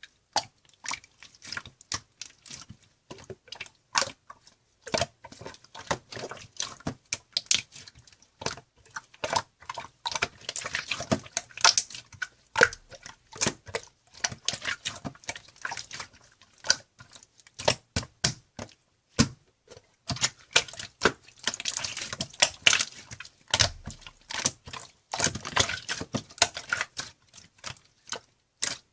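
Irregular rapid clicking and tapping, several clicks a second with short pauses, denser in two stretches.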